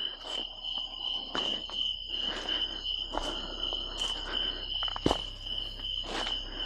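Steady high-pitched trill of a night insect chorus, with a crunching step or rustle about once a second and one sharp click about five seconds in.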